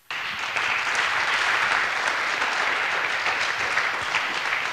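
Audience applauding, starting abruptly and holding steady.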